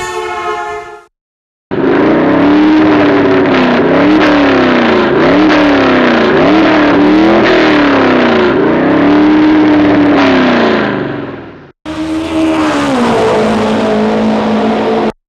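Car engine revving loudly, its pitch climbing and falling over and over for about ten seconds. After a sudden cut near the end, the pitch drops and settles to a steady idle. A short steady chord is heard at the very start, before a brief silence.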